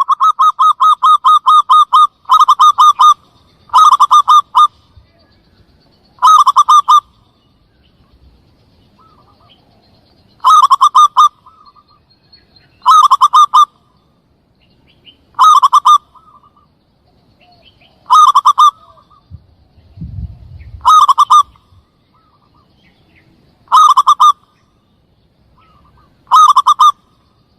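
Zebra dove (perkutut) cooing as a hunting lure call. It opens with a long run of rapid staccato coos, then gives short bursts of coos about every two and a half seconds. There is a brief low rumble a little past the middle.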